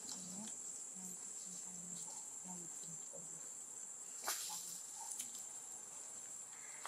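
Insect chorus in forest: a steady high-pitched drone, with a sharp click about four seconds in.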